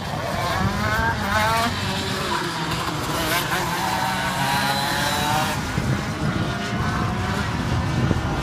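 Go-kart engine out on the circuit, its pitch climbing twice as the kart accelerates and dropping as it lifts off in between.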